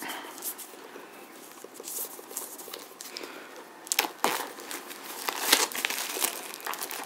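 Plastic shrink-wrap crinkling and tearing as it is pulled off a Blu-ray digibook case by hand, with louder, sharper crackles from about four seconds in.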